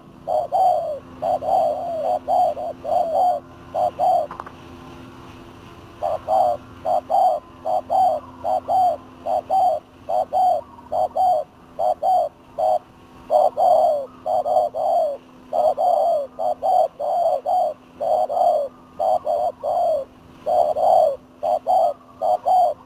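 Spotted doves cooing: a quick series of short coos, several a second, broken by a pause of about two seconds early on. A faint steady low hum runs underneath.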